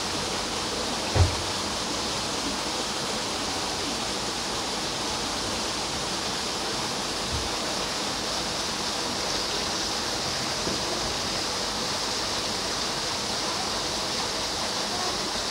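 Steady rush of running water, with one dull low thump about a second in.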